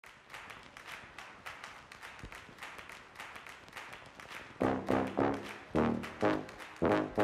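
Intro music: a quick, light rhythmic pattern, joined about halfway in by louder, lower notes in a bouncing rhythm.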